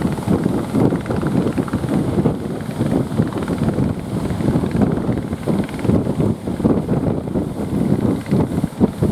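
Strong sea wind buffeting the microphone: a continuous rumbling roar with rapid, uneven gusty flutter.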